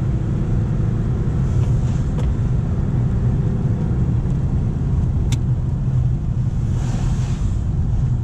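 Nissan Navara D40 pickup's engine and road noise heard inside the cab: a steady low drone as the truck pulls up a steep hill. A hiss swells and fades about seven seconds in.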